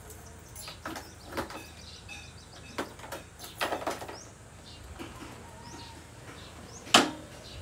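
Scattered clicks and knocks from a scooter's controls and handlebars being worked, with a louder sharp knock near the end; the engine does not start. Birds chirp faintly in the background.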